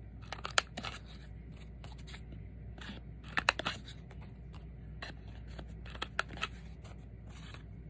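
A hand cutting tool trimming the corners of a glossy catalog-paper cutout round. Sharp snips come in short clusters: about half a second in, around three and a half seconds, and around six seconds.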